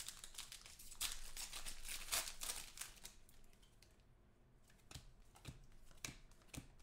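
Trading cards and foil pack wrappers being handled: quick rustles and light snaps of card stock and crinkly foil, busiest in the first couple of seconds, sparser in the middle, with a few sharper clicks near the end.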